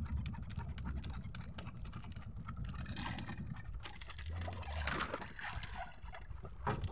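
Low wind rumble on the microphone aboard a small drifting boat, with scattered clicks and knocks of gear being handled and a brief rustling, splashy stretch in the middle; no engine running.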